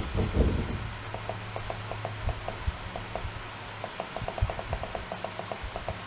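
Shiba Inu sniffing at its owner's side and lap: from about a second in, a quick, irregular run of short sniffs and nose clicks, a few a second, after a brief low rustle at the start.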